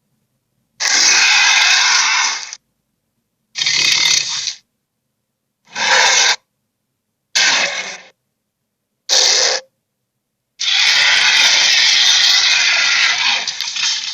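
A person voicing dragon sound effects: raspy, breathy hisses in six bursts with dead silence between them. The last and longest runs about three and a half seconds.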